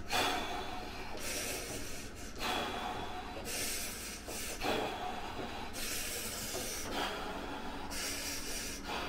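A man breathing heavily in and out through an open mouth while sitting in an ice bath, about one breath a second, the strained breathing of cold-water immersion.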